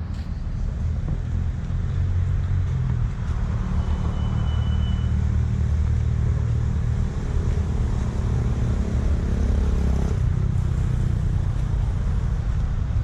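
A car driving, a steady low engine and road rumble, with a short high tone about four seconds in.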